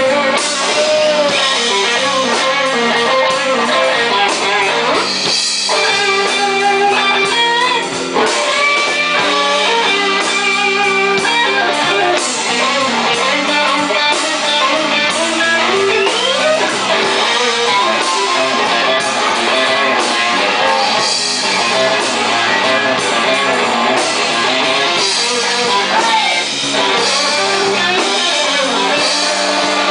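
Live blues band playing an instrumental stretch: an electric guitar leads with notes that bend up and down over the band's accompaniment.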